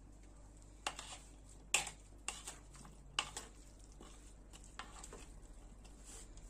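A serving spoon tossing a freshly dressed orzo salad in a large ceramic bowl: soft wet stirring with a dozen or so irregular clicks and scrapes of the spoon against the bowl.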